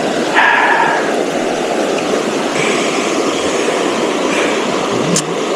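Steady rushing of stream water, with a brief whistle-like tone about half a second in.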